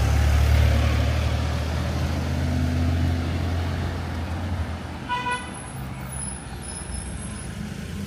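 A motor vehicle's engine rumbles past and fades away over the first four to five seconds. About five seconds in, a vehicle horn gives one short toot.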